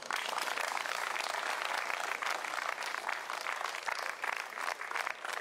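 Crowd applauding, many hands clapping at once, easing off near the end.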